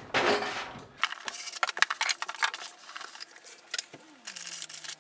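Rustling, then a run of light clicks and clinks as a thin metal motherboard I/O shield is handled at a PC case.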